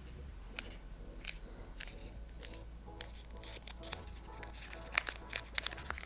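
Hands working small pieces of craft foam glued with contact cement: scattered small clicks and crackles, coming thicker in the second half.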